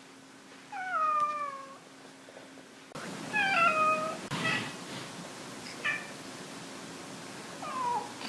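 Domestic cats meowing: a long meow falling in pitch about a second in, another about three and a half seconds in, then a few shorter calls and a rising meow near the end.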